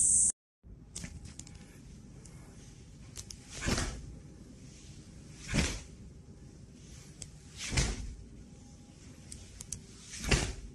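A high insect chirring cuts off right at the start. Then come four forceful swishing bursts about two seconds apart, each swelling and dying within half a second: the sounds of Xinyi Liuhe Quan strikes done by a practitioner in a small room.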